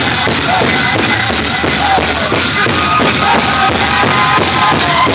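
Powwow drum group playing a chicken dance song: a big drum struck in a fast, steady beat, about three strokes a second, with high-pitched singing over it from about three seconds in.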